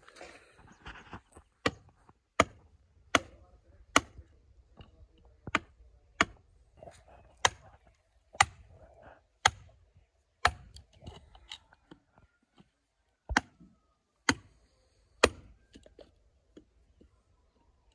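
A hand tool chopping with sharp, single strikes, about one a second at an uneven pace. Some strikes are much louder than others, and there are short pauses between runs.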